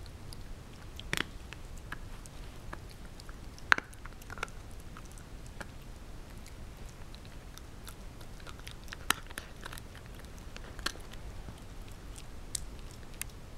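Shiba Inu puppy chewing a crumbly treat, with irregular sharp crunches, the loudest a little over a third of the way in and again about two-thirds through.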